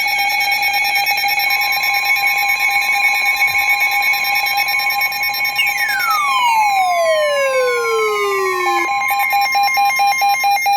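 Electronic alert tones of an Emergency Alert System severe thunderstorm warning: several steady tones held together, a further tone joining about a second and a half in, a tone sweeping steeply down in pitch from about halfway, then the tones breaking into fast pulsing near the end.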